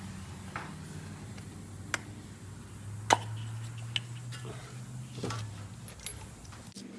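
Irregular light clicks and ticks over a low steady hum, with the hum changing abruptly near the end.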